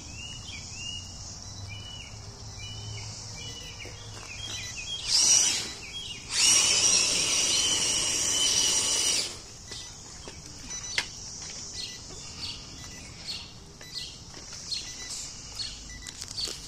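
Birds chirping repeatedly in the background. Partway through, a loud rushing noise comes in briefly and then again for about three seconds before stopping abruptly.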